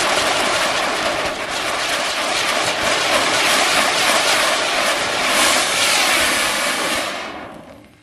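Three anar fountain firecrackers burning on the blades of a table fan, a loud steady hiss of spraying sparks. The hiss fades away near the end as the fountains burn out.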